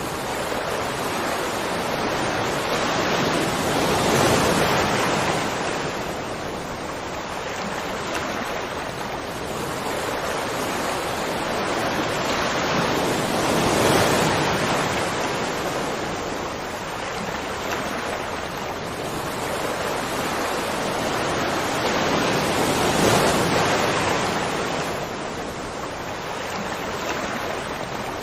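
Rushing water: a dense, continuous rush that swells and eases slowly, peaking about every nine or ten seconds.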